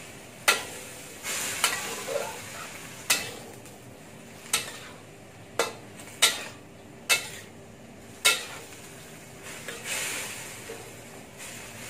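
A spatula stirring chopped greens in a stainless steel wok, knocking sharply against the pan about eight times at uneven intervals, over a light frying sizzle that swells twice.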